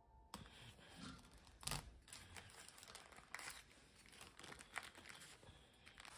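Parchment baking paper crinkling and rustling as it is peeled back by hand from a baked cake, in faint, irregular crackles with a louder crackle about two seconds in.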